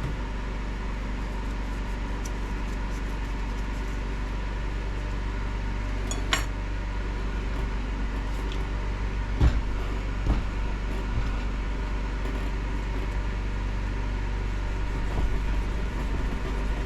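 Steady mechanical hum, with a few sharp clicks and taps about six, nine and a half and ten and a half seconds in.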